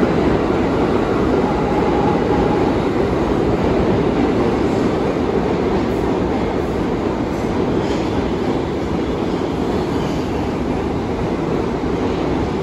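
R62A subway train running along the station track: a steady rumble of steel wheels on the rails, easing off slightly toward the end.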